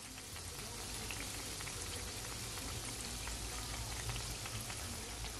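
Cornmeal festival dumplings deep-frying in hot oil: a steady, fairly quiet sizzle full of fine crackling.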